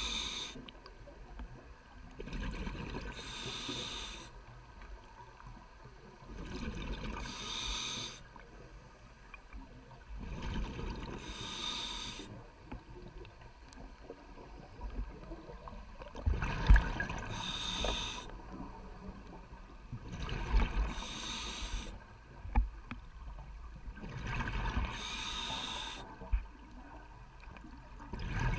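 Scuba diver breathing through a regulator underwater: a burst of exhaled bubbles roughly every four seconds, with quieter low noise between breaths. A few dull knocks come in, the loudest just past halfway.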